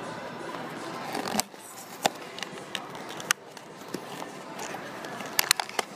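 Small cardboard blind box and its packaging being handled and opened by hand: scattered light clicks and crinkles, with a quick run of sharper crackles near the end.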